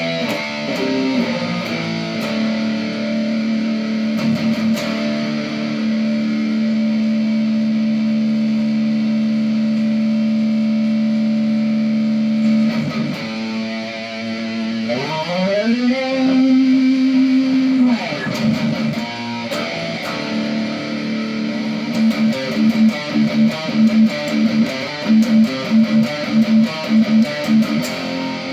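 Electric guitar played through a Positive Grid Spark practice amp with distortion: one long sustained note held for about ten seconds, then a note sliding up in pitch and held, then a run of short rhythmic picked notes near the end.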